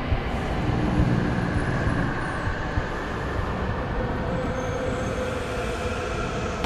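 A steady low rumble of vehicle noise.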